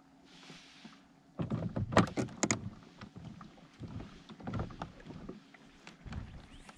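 Knocks and clatter of gear being handled aboard a kayak. A burst of loud, sharp knocks comes about a second and a half in, followed by softer scattered thumps.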